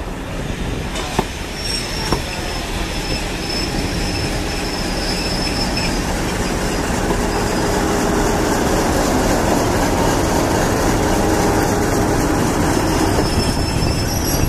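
Passenger coaches rolling slowly past on the rails, with a thin, steady high wheel squeal early on and a few clicks from the rail joints. The rumble grows louder toward the end as Class 50 diesel locomotive 50031 comes alongside.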